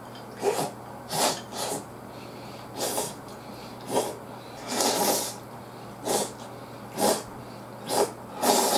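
A man's heavy breathing through the nose while eating: about ten short, noisy breaths, roughly one a second.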